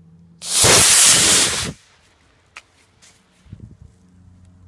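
A model rocket's solid-fuel motor ignites and burns with a loud hiss for about a second and a half as the rocket lifts off, then cuts off.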